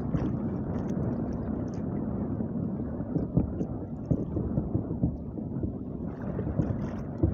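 Wind rumbling on the microphone and waves washing around a small outrigger boat on choppy open sea, with a few light knocks.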